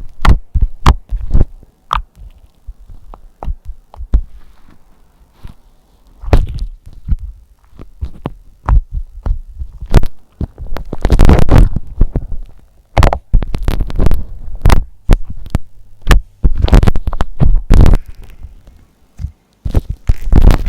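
Slime being squished and poked close to the microphone: irregular sharp pops and clicks, with longer squelching stretches now and then.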